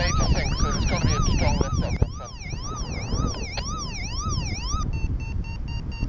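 Paragliding variometer sounding over wind rumble on the microphone: a warbling electronic tone that rises and falls about twice a second, which changes near the end into quick, evenly spaced beeps of the kind a vario gives when the glider is climbing in lift.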